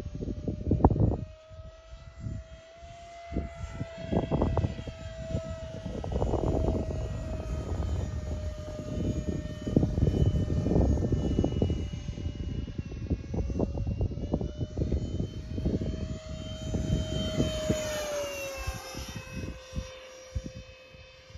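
Electric ducted-fan whine of a 64 mm Arrows Marlin RC jet in flight, a steady high tone that drops in pitch near the end as the jet passes by. Irregular gusts of wind buffet the microphone throughout.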